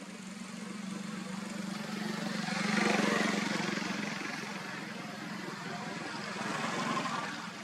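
Steady low motor hum with a vehicle passing by, swelling to its loudest about three seconds in and rising again briefly near the end.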